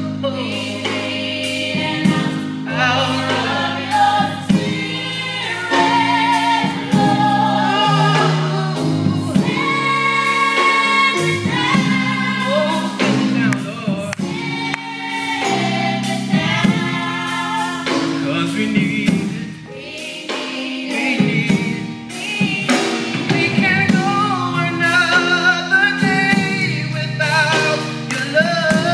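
A women's vocal group singing a gospel song with vibrato, over accompaniment that holds sustained low bass notes.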